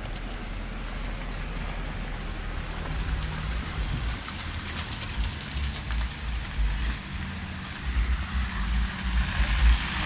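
Steady hiss and patter of falling wet snow, with irregular low rumbles that grow stronger in the second half.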